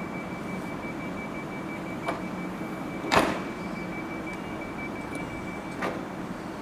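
Railway station platform sounds: a steady low hum with a thin, high, steady tone that stops near the end, broken by three sharp knocks, the loudest about three seconds in.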